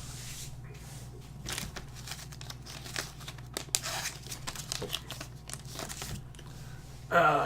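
Crinkling and tearing of a trading-card pack wrapper being handled and torn open, many small irregular crackles over a low steady hum.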